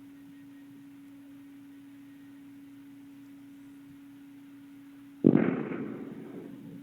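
One distant explosion ('kaboom') from a missile or drone strike, picked up by a security camera's microphone: a sudden boom about five seconds in that dies away over a second and a half. A steady low hum runs underneath.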